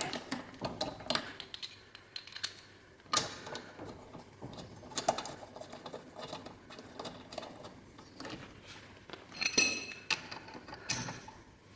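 Scattered small metallic clicks and clinks of wheel bolts being threaded in by hand and tools being handled, with one brief ringing clink about three quarters of the way through.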